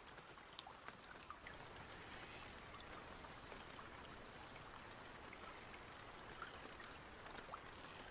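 Faint steady running water with scattered small drips.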